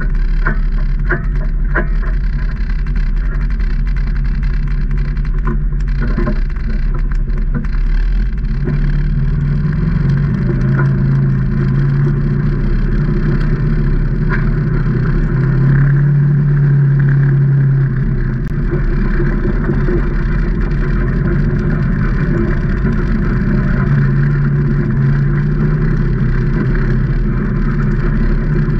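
Can-Am Maverick Trail 800 side-by-side's Rotax V-twin engine running under way, its pitch rising and falling with the throttle. A run of regular clicks, about two a second, comes in the first couple of seconds.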